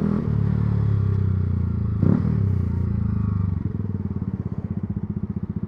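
Yamaha R125's single-cylinder four-stroke engine running steadily, then, about three and a half seconds in, dropping to a slow, evenly pulsing idle. A brief sharp sound about two seconds in.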